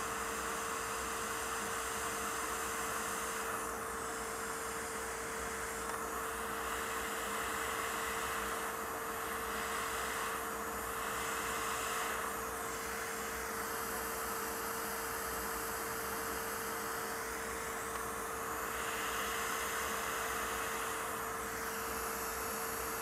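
Hot air rework station blowing: a steady hiss of air with a steady hum under it.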